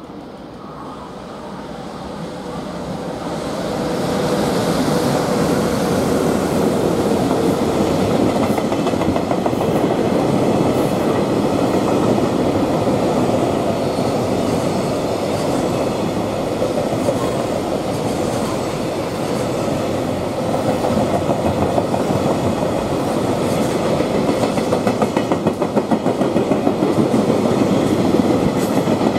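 Electric-hauled container freight train passing close by. The rumble swells over the first few seconds as the locomotive arrives, then the wagons roll past steadily, with the rhythmic clickety-clack of wheels over rail joints growing sharper near the end.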